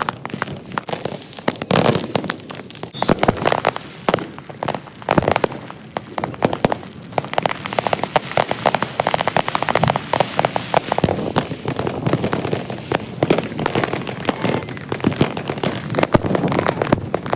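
Consumer fireworks and firecrackers going off without pause: rapid, overlapping bangs and crackles, many at once.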